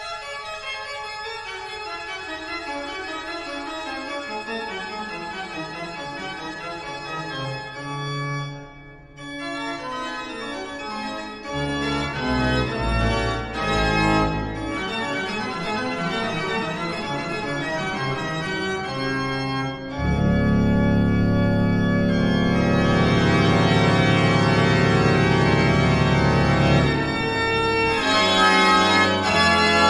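Background music carried by sustained keyboard chords, with a brief drop about nine seconds in, a low bass line entering around twelve seconds, and a fuller, louder section from about twenty seconds.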